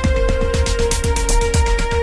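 Electronic dance music with a fast, steady kick-drum beat, bright ticking percussion and long held synth notes.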